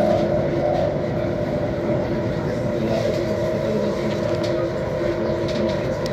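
Delhi Metro electric train running along the track, heard from inside the carriage: a steady rumble of wheels on rail with several steady humming tones held over it.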